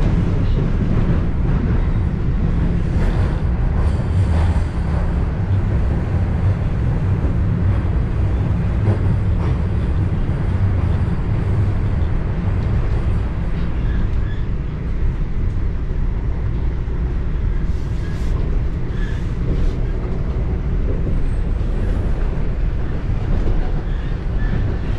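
Toronto subway train running between stations: a steady low rumble of wheels on the rails and running gear, with a few faint clicks.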